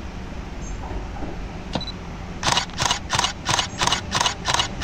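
A single-lens reflex camera's shutter firing in a continuous burst of about eight frames, about three a second, over a low rumble from a passing train. A single sharp click comes just before the burst.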